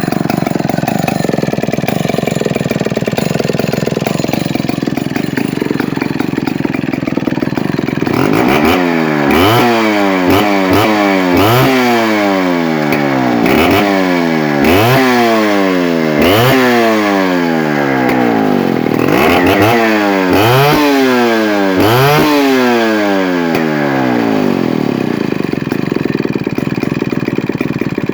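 Chainsaw engine idling, then revved hard about ten times in quick succession, each rev rising sharply and falling back, before settling to idle again near the end.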